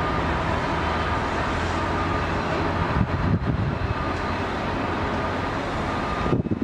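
A steady engine drone with a faint high whine, which cuts off suddenly near the end, where gusty wind on the microphone takes over.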